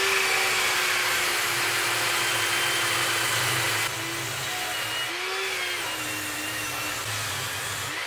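Portable table saw running freely with no cut yet: a steady motor whine over a hiss. The level dips slightly about four seconds in, and the pitch wavers a little after that.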